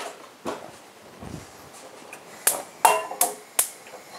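A frying pan being set on a gas hob and the burner lit: a soft knock, then four sharp metallic clicks in quick succession a little past halfway, some with a short ring.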